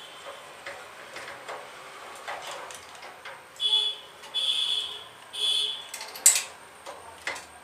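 Hands and a screwdriver working on a gas geyser's solenoid valve coil and its wiring: faint clicks, then three short squeaks about half a second each, and a sharp click about six seconds in.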